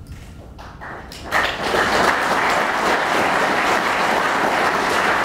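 Audience applauding. After a brief lull the clapping breaks out suddenly about a second and a half in and then carries on steadily.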